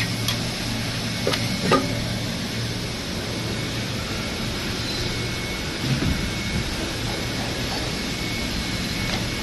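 Injection molding machine running in the shop: a steady mechanical hum and hiss with a faint high steady tone. A couple of light clicks come about one and a half seconds in, and a single knock about six seconds in.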